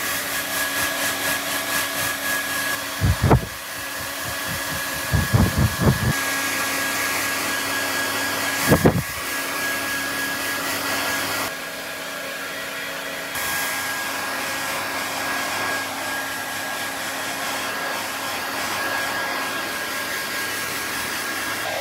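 Hair dryer blowing steadily with a faint whine while a cat's wet fur is dried after a bath. A few short low bumps come about three, five and nine seconds in.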